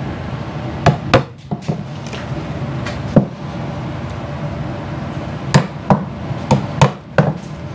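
A hammer tapping finishing nails through the edge of a beaver pelt into a wooden stretching board: about nine light, sharp taps in short groups.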